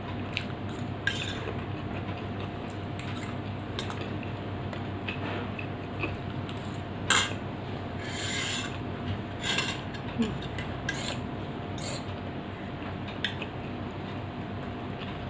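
A person eating a dry, spicy snack: scattered short clicks and crackles, one louder about seven seconds in, over a steady low hum.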